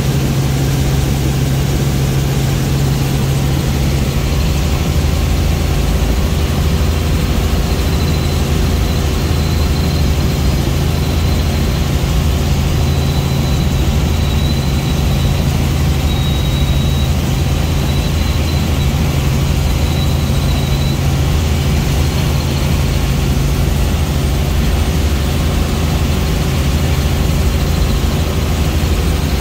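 Steady drone of a light helicopter's engine and rotor heard from inside the cabin in flight: a strong low hum under an even rush of noise.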